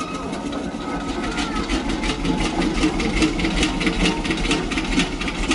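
A small machine running steadily, with a quick, uneven ticking over a low hum.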